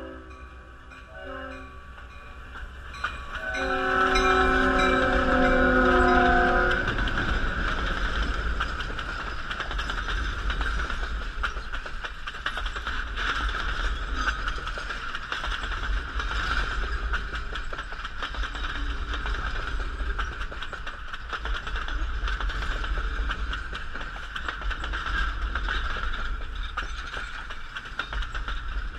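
Train horn sounds at a grade crossing: a blast that ends about a second in, then a long, louder blast from about three and a half seconds to seven seconds. After the horn, the passenger coaches roll past close by with a steady heavy rumble and the noise of wheels on the rails.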